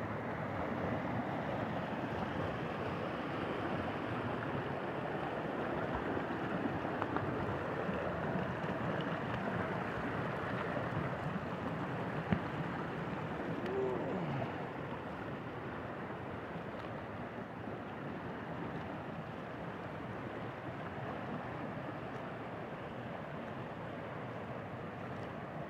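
Rocky creek running fast after heavy rain, its water rushing and splashing over stones and small riffles in a steady noise that eases slightly about halfway through. A single sharp click a little before the middle.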